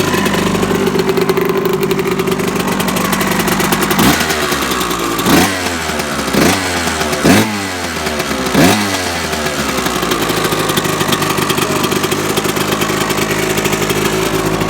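2000 Kawasaki KX 125 two-stroke single-cylinder engine idling, blipped sharply about five times in the middle, each rev rising and falling quickly, then settling back to a steady idle.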